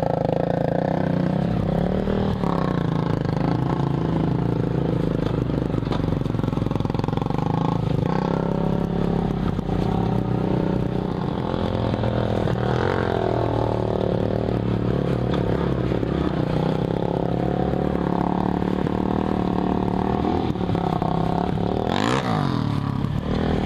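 Suzuki Bandit motorcycle's inline-four engine running at low trail speed, its pitch rising and falling with the throttle, with some clatter from riding over rough dirt.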